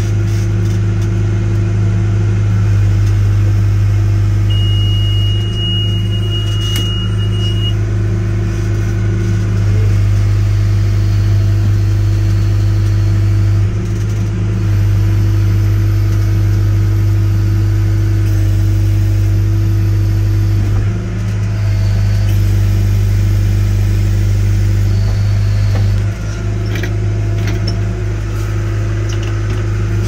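John Deere 310SG backhoe's four-cylinder diesel engine running steadily, heard from inside the cab as the backhoe is worked, with its level sagging briefly a couple of times. A thin high tone sounds for about three seconds, roughly five seconds in.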